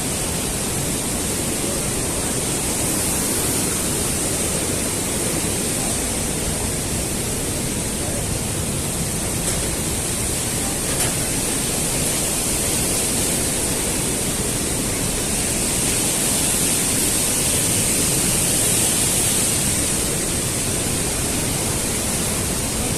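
Rushing water of the gorge's stream and waterfalls: a loud, steady roar without breaks.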